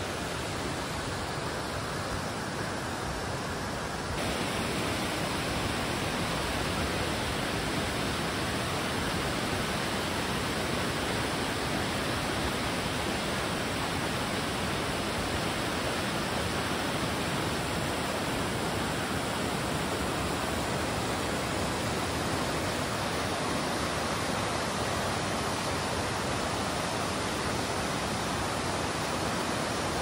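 Steady rush of falling water from a waterfall, turning a little louder and brighter about four seconds in.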